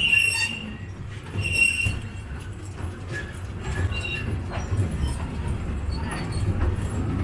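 The Taipingshan Bong Bong narrow-gauge forest train running slowly on its track with a steady low rumble. Short high-pitched wheel squeals come three times as it rounds a curve.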